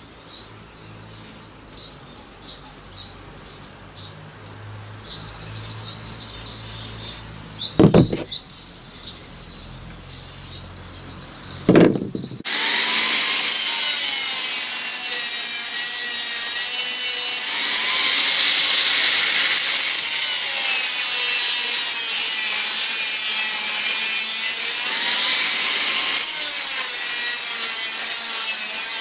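Birds chirping, with a few sharp knocks as the hatchet head is handled. After an abrupt cut, an angle grinder with a thin cut-off disc cuts through steel: a loud, steady whine over a grinding hiss.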